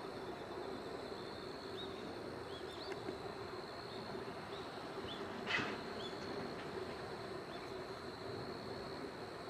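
Outdoor evening ambience: a steady high insect drone over a low steady hum, with a few faint short bird chirps and one louder brief sound about five and a half seconds in.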